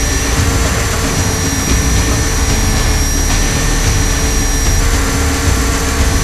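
Align T-Rex 500 RC helicopter's electric motor, gears and rotor running, heard from an onboard camera inside its scale Black Hawk fuselage: loud, steady mechanical noise with a constant high whine.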